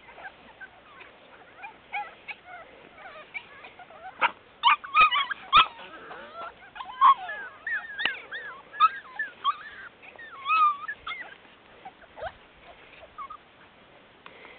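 French Bulldog puppies whimpering and yipping: many short, high calls that bend up and down in pitch and overlap, thickest through the middle. A few sharp clicks stand out among them a little before the middle.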